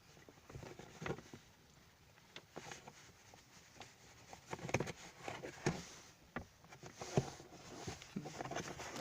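Irregular light clicks and knocks of plastic as a 2007 Kia Cerato's glovebox rubber stops and soft-opening damper are pried loose by hand.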